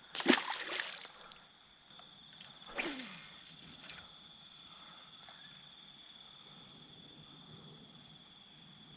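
Insects calling in a steady, single high-pitched drone. Two brief rushing noises come in the first four seconds, the second sweeping downward in pitch.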